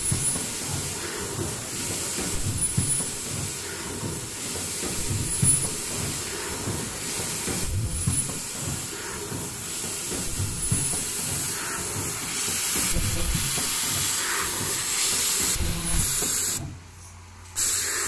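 Automatic folding mask production line running: steady machine noise with hissing and a busy low knocking, and a short high-pitched tone repeating about every two and a half seconds with each machine cycle. The noise drops away for under a second near the end.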